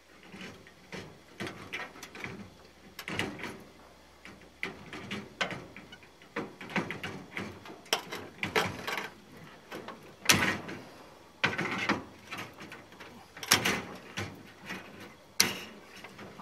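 Steel bed springs being cut and worked loose from an old cast iron bed frame with a hand tool: irregular metallic clicks, clanks and rattles, with a few sharper, louder snaps in the second half.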